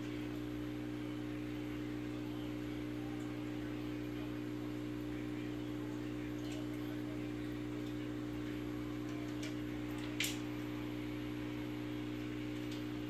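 Steady electrical hum from a running home aquarium's equipment, with air bubbles streaming from an air line. A few faint ticks, and one sharp click about ten seconds in.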